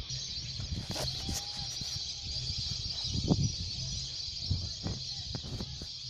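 A steady high-pitched hiss, with low rumbling and several soft knocks from the phone being handled and moved, the loudest knock a little past the middle.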